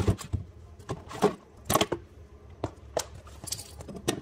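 Garbage disposal and its mounting hardware being handled under a sink: a sharp double knock at the start, then scattered clicks and clunks of the unit and metal mounting collar being shifted.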